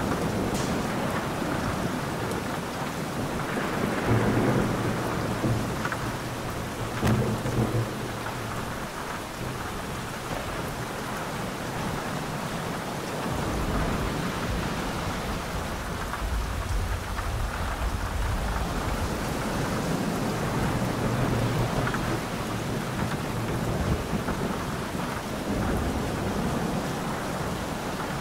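Steady heavy rain with thunder. Two louder rolls of thunder come about four and seven seconds in, and a long low rumble begins about halfway through.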